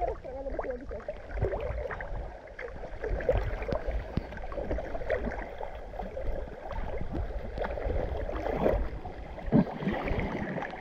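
Sea water sloshing, gurgling and splashing around a waterproof action camera held at the surface by a swimmer, with an irregular run of small splashes over a low rumble.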